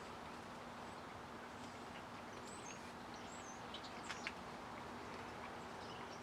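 Faint bird chirps over a quiet, steady outdoor background with a low constant hum, and a couple of short clicks about four seconds in.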